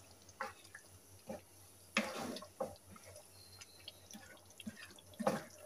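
A spatula stirring thick masala gravy with pieces of goat liver in a frying pan: quiet, scattered wet sounds, a few short ones about a second apart and a slightly longer one about two seconds in.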